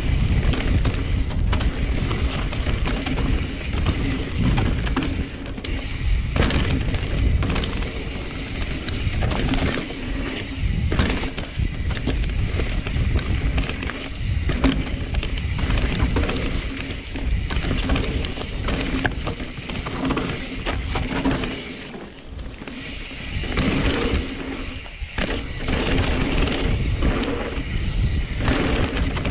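A 2020 Norco Sight C3 full-suspension mountain bike descending a rough trail, its chain, hub and frame clicking and rattling over the bumps, with a steady hum underneath. The noise eases briefly around twenty-two seconds in, then picks up again.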